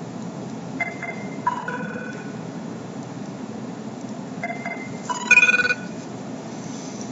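Mobile phone ringtone: a short melodic phrase of a few clear notes, played twice, the second time louder, for an incoming call.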